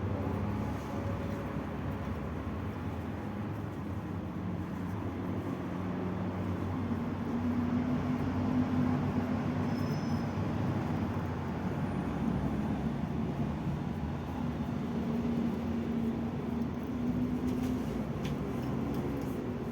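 A workshop machine running steadily under load with a continuous rumbling, grinding noise and a faint wavering hum.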